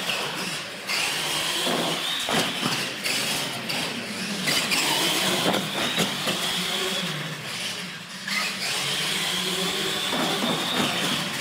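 Radio-controlled monster trucks driving on a concrete floor, their electric motors and gears whining. The whine rises in pitch as they speed up, drops off about halfway through and climbs again, with tyre noise and small knocks mixed in.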